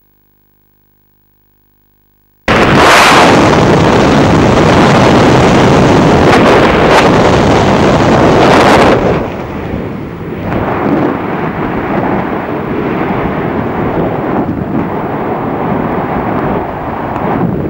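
Near silence, then loud wind rush on the camera microphone in skydiving freefall cuts in suddenly about two and a half seconds in. Around nine seconds in it drops to a quieter, gusty rush under the open parachute canopy.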